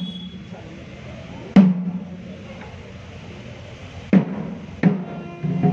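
A temple drum struck in single loud beats, each with a short ringing tail: one about one and a half seconds in, then three more closer together near the end.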